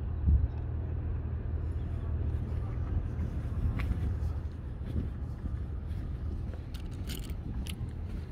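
A steady low rumble, with a brief thump just after the start and a few sharp clicks near the end.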